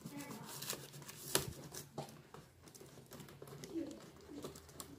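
Scattered plastic clicks and taps as fingers press along the top edge of a newly fitted HP 440 laptop keyboard, seating it so its clips latch into the case; one sharper click comes about a second and a half in.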